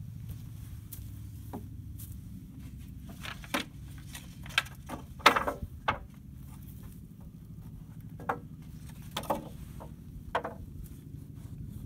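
Wooden sticker strips being laid down onto a stack of sawn lumber boards: a series of about seven separate wooden knocks and clacks, the loudest about five seconds in, over a steady low hum.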